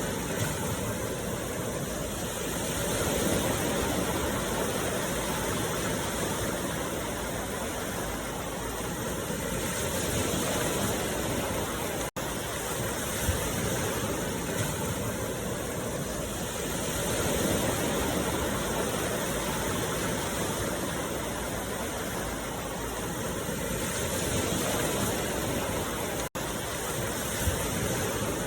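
Steady rushing noise, like running water or surf, swelling and easing slowly about every seven seconds, with two split-second dropouts.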